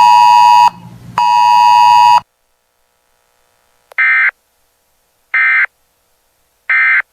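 Two loud buzzing alert tones with many overtones in the first two seconds, then three short identical digital chirps about 1.4 seconds apart: the SAME end-of-message data bursts that close a weather radio emergency alert broadcast.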